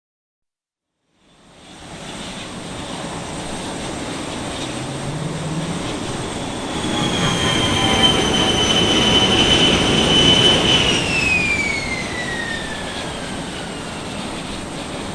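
Jet engine noise: a rushing roar builds up after a second of silence, and a high turbine whine comes in, holds steady, then glides down in pitch over the last few seconds.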